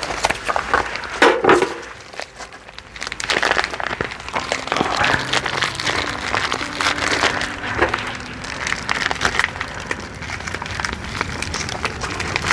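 Meat sizzling and crackling on a hot grill, a dense irregular crackle throughout, with a louder cluster of clatters about a second in.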